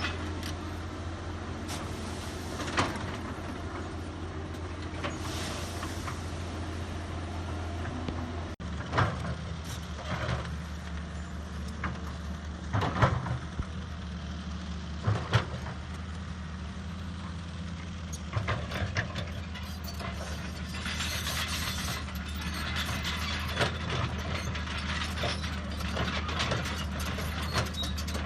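A heavy construction machine's diesel engine runs steadily, with sharp metallic clanks and knocks now and then. About a third of the way in the engine note changes abruptly to a different, slightly higher hum.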